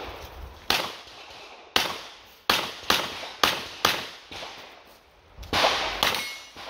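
Smith & Wesson 929, an eight-shot 9×19 mm revolver, firing a string of six sharp shots spaced half a second to a second apart, then one louder report with a longer ringing tail near the end.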